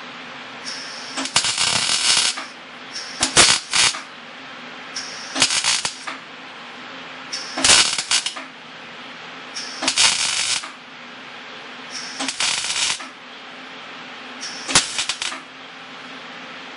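Wire-feed welder arcing on a steel car frame in short stitch welds: seven crackling, sputtering bursts about two seconds apart, with a steady hum between them.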